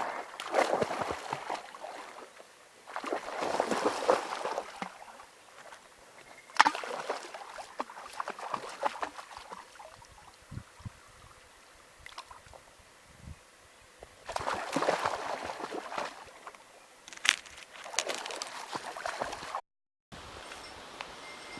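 Water sloshing in five irregular bursts of a second or two each, with a few sharp clicks among them.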